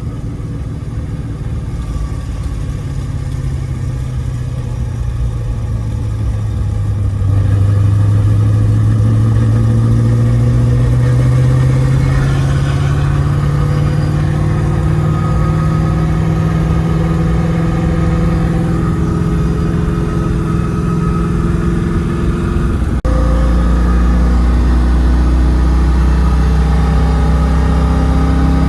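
A 1994 Corvette's LT1 V8 and ZF manual drivetrain are heard from inside the car while driving, running smoothly after an engine rebuild. The revs rise slowly over about twenty seconds. About 23 seconds in, the sound switches abruptly to a deeper, steadier drone.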